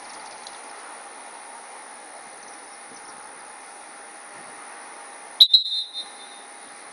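Short, sharp blast on a dog-training whistle, a high piercing tone lasting about half a second, coming about five and a half seconds in: the sit command to a retriever. A steady high-pitched hum of insects runs underneath.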